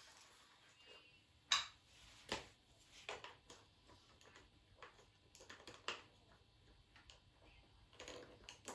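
Irregular light clicks and knocks of hard objects being handled, the loudest about a second and a half in.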